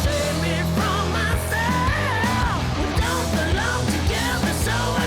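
Rock music with a sung vocal line over driving bass and drums.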